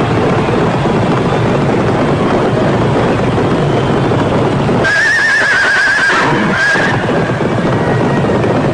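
Horse whinny sound effect from a stadium home-run celebration, a high, warbling call about five seconds in. Before it comes a dense, loud rush of noise.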